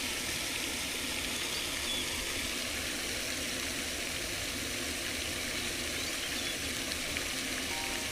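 Steady rushing water, a continuous even hiss with no breaks. Faint steady tones enter near the end.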